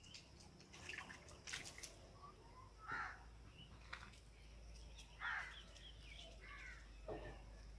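Faint short animal calls, about four of them spaced a couple of seconds apart, with a few sharp clicks between them.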